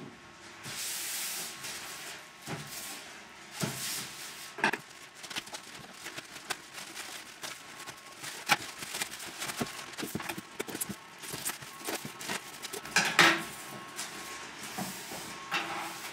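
Plastic mailer bag and packaging rustling and crinkling as a parcel is cut open with scissors and unwrapped, with many scattered crackles and small knocks from handling; the loudest burst comes about 13 seconds in.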